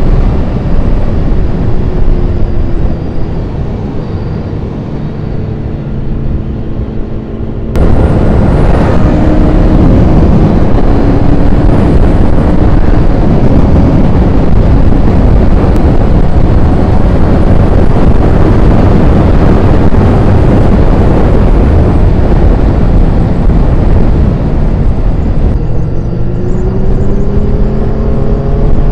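Honda CBR1000RR Fireblade's inline-four engine under way at speed, with a Yoshimura exhaust. From about eight seconds in, heavy wind noise on the helmet's cheek-pad microphone cuts in abruptly and largely drowns the engine. Near the end the engine pitch climbs as the bike accelerates hard.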